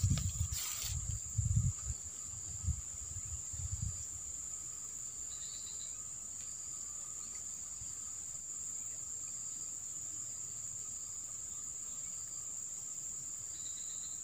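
Steady high-pitched insect chorus, one unbroken buzzing tone from crickets or similar insects. Low thumps and a brief crackle in the first few seconds.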